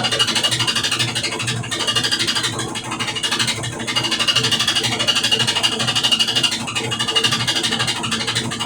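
Brastemp BWK12 washing machine spinning, with a loud rattle like a shaker over the drum's hum, pulsing quickly and evenly: an abnormal noise during the spin cycle.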